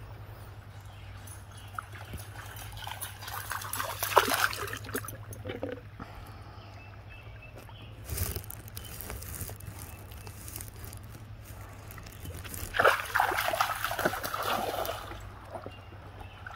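Water splashing and sloshing as a border collie wades and paws through a shallow river, nosing a plastic frisbee along the surface, in two louder bouts, about three to five seconds in and again from about thirteen to fifteen seconds.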